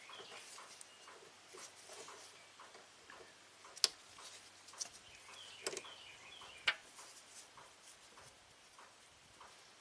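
Faint clicks and taps of hose clamp pliers and spring hose clamps as coolant hoses are refitted to a new thermostat housing; a few sharp clicks, the loudest about four seconds in.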